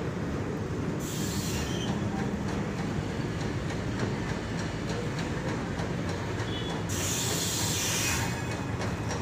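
Loaded BOXNHL open coal wagons of a freight train rolling past: a steady rumble of wheels on the rails with rapid clicking. Two bursts of high-pitched hiss come about a second in and about seven seconds in.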